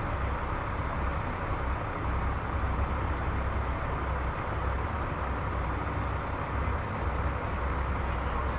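Steady rumble of heavy diesel vehicles idling, with an uneven low rumble of wind on the microphone.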